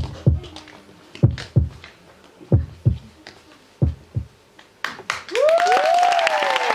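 Heartbeat-style double thumps, a lub-dub pair about every 1.3 seconds, four times over. About five seconds in, an audience breaks into applause with whoops and cheers.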